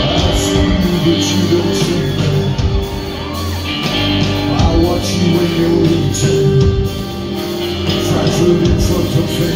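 Live band music with a male lead singer singing into a microphone, loud and steady.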